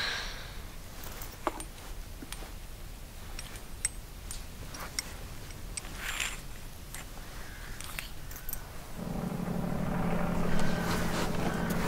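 Small metallic clicks and rustling as a homemade bolt-and-nut popgun is handled in gloved hands. About nine seconds in, a steady low hum with overtones comes in and holds.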